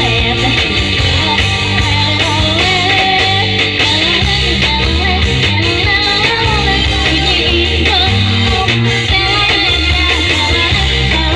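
Band music: a singer's voice carrying the melody over electric guitar, bass and a steady beat.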